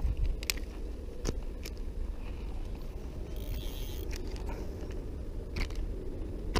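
Steady low rumble of wind on the microphone, with a few sharp clicks and a short rustle from handling the fish, line and rod as a crappie is unhooked.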